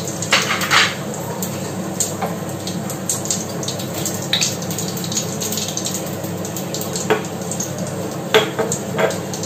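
Cumin seeds sizzling in hot mustard oil in a pan, a steady frying hiss, with several sharp clinks of utensils against the pan.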